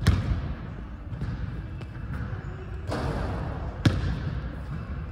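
A basketball bouncing on a hardwood gym floor: one sharp bounce right at the start and another a little before the end, each ringing on briefly in the hall.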